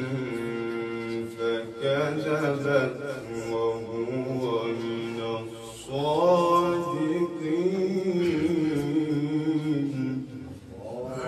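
A man's voice reciting the Quran in a slow, melodic chanted style, holding long ornamented notes. There is a short pause for breath about six seconds in before the next phrase.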